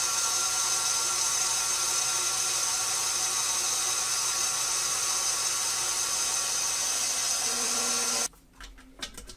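KitchenAid stand mixer's motor running steadily, with a faint whine, as it drives the stainless steel pasta roller and a sheet of dough feeds through the rollers. The motor cuts off suddenly about eight seconds in.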